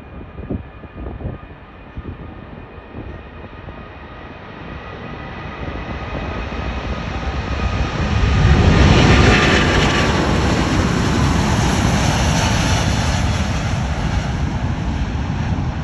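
Jet airliner engines, a rumble with a steady whine over it, growing louder through the first half and then holding loud.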